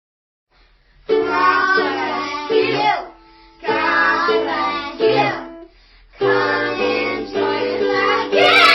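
Music: children singing with ukulele accompaniment, starting about a second in, in three phrases with short pauses between them.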